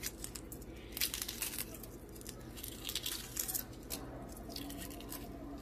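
Shell of a hard-boiled egg being cracked and peeled off by hand: faint crackling and crinkling that comes in several short bursts.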